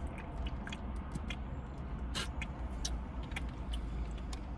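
Steady low rumble, as inside a car, with scattered small clicks and smacks of people eating.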